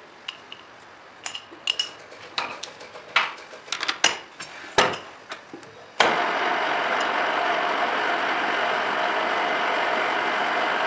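Metal clinks and knocks as a drill chuck is set up in a metal lathe's tailstock. About six seconds in, the lathe starts suddenly and its motor and headstock gearing run steadily.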